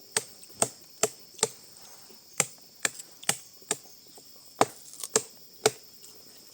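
Repeated sharp chopping strikes, about two a second, in runs of three or four with short pauses between.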